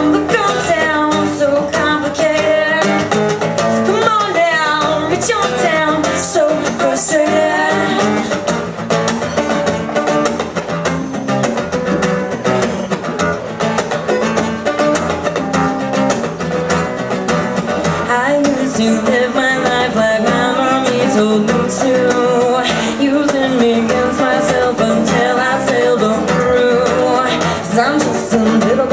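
Live acoustic song: a strummed acoustic guitar with hand-played conga drums, backing singing.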